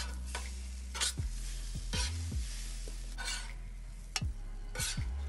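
Metal spatula scraping across a steel griddle top about four times, in short strokes, as it works under and lifts a hashbrown scramble, with the food sizzling. Background music with a deep bass beat runs underneath.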